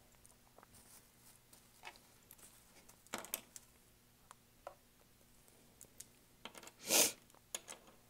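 Quiet room with faint, scattered small clicks and rustles of handling things on a painting table, and one louder short hiss about seven seconds in.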